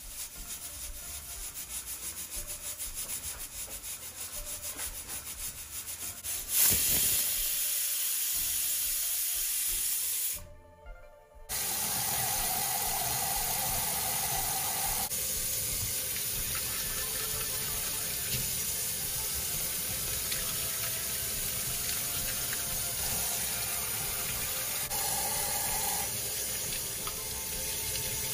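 A stovetop pressure cooker's weighted valve hissing steam in quick, even puffs. After a short break, tap water runs steadily into a stainless steel sink, splashing over hands rinsing ginger near the end.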